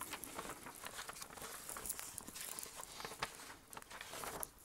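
Light clicks and rustling from an oscilloscope probe and its leads being handled and positioned on a circuit board: scattered small ticks and short scrapes, with no steady sound under them.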